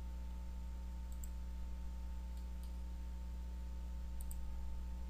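A few faint computer-mouse clicks, in pairs about a second in, halfway through and near the end, over a steady low electrical hum.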